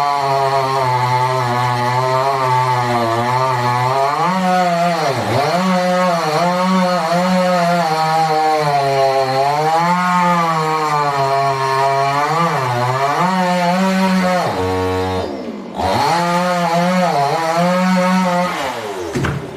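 Two-stroke chainsaw running at high revs while cutting wood, its pitch sagging and recovering repeatedly as the chain bites into the log. About fifteen seconds in it drops briefly, revs up again, and falls away near the end.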